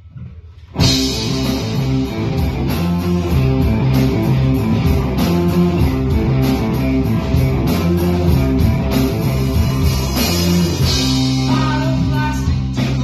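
Live rock band playing amplified electric guitars, bass and drums. After a brief lull, the whole band comes back in together under a second in and plays on with a steady beat.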